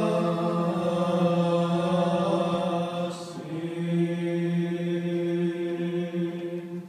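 Eastern Orthodox liturgical chant: voices singing long, steadily held notes, fading out just at the end.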